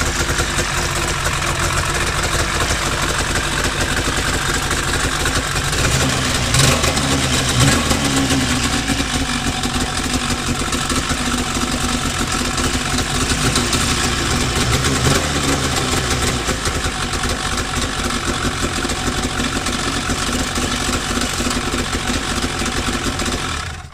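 2003 Polaris RMK 800's two-stroke twin engine running steadily on its first start after a rebuild, rising briefly in revs a couple of times about six to eight seconds in and once more near fifteen seconds. It cuts off suddenly at the very end.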